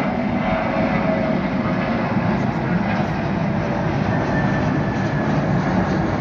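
Jet airliner's engines at high power as it takes off, a loud steady rushing noise with faint whining tones in it.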